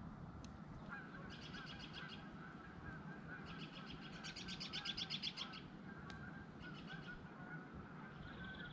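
Faint wild bird calls in quick runs of rapidly repeated notes, one short run about a second in and a longer, louder run midway, with a few light crackles from the wood fire.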